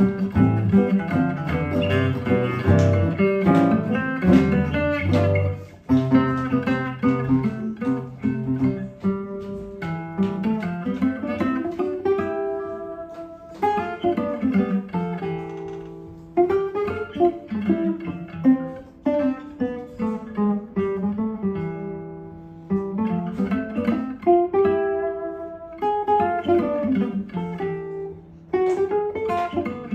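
Gypsy-jazz guitar duet: a Selmer-style acoustic guitar and a resonator guitar playing a swing tune. The first few seconds carry busy chording with a strong bass, then a single-note melody with notes that slide up and down in pitch.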